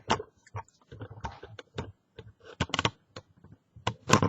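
Irregular small metallic clicks and taps of a lock pick and tension tool working inside a 5-lever mortice lock, with a louder cluster of clicks near the end.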